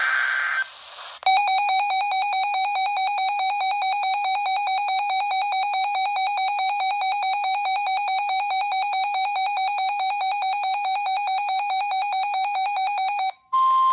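A RadioShack weather radio's built-in alert alarm goes off, a loud, rapidly pulsing electronic beep that signals a received warning alert, here a flash flood warning. A brief burst of radio static with a data tone comes before it. Near the end the alarm cuts off and static returns with the start of the steady broadcast warning tone.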